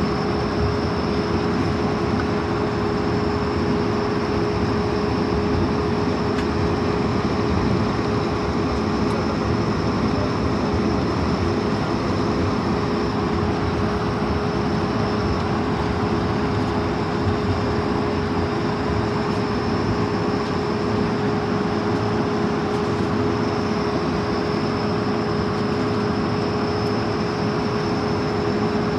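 Airbus A220-300 cabin noise while the airliner taxis: a steady rumble of the engines and airflow, with a steady mid-pitched hum and a faint high whine running through it.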